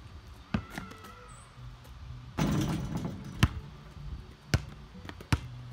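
Basketball being shot and bounced on an asphalt driveway: sharp single bounces early on and then three more near the end. About two and a half seconds in there is a longer, noisier clattering hit, the ball striking the hoop and backboard.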